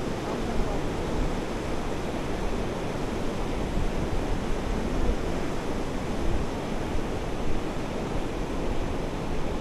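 Glacial meltwater of the Hooker River rushing steadily, a continuous even noise of fast-flowing water, with some wind buffeting the microphone.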